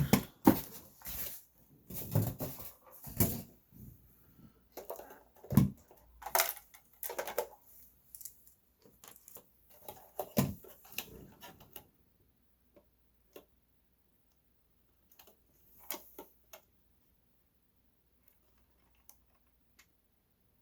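Handling noises: a quick run of clicks, taps and rustles for about twelve seconds, then only a few faint isolated clicks.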